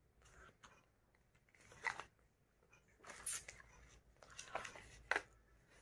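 Several faint, short crinkling and scraping bursts as a Pringles can is handled and opened, its plastic lid and foil seal being worked loose.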